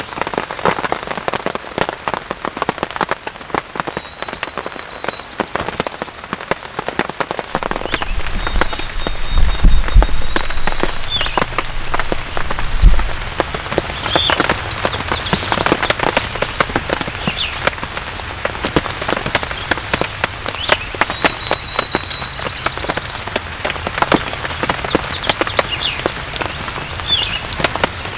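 Steady rain falling, a dense pattering of drops. Several times a songbird's thin, high trill or a few chirps come through over it, and a low rumble comes in about ten and thirteen seconds in.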